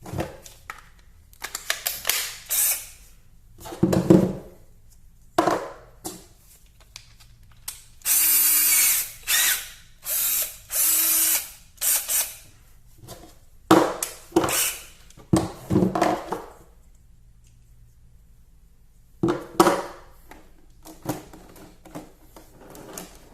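Clicks and knocks of tools and sockets being handled, with three short runs of about a second each from a BLACK+DECKER 20V Max cordless drill about a third of the way in.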